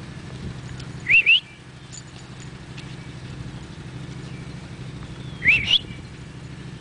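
A person whistling twice, about four seconds apart, each time a quick pair of rising notes: a call to the dog.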